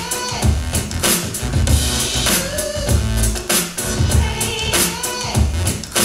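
Drum-heavy music with a strong bass beat, an MP3 sample upscaled by a Denon AVR-S960H receiver and played through a floor-standing loudspeaker.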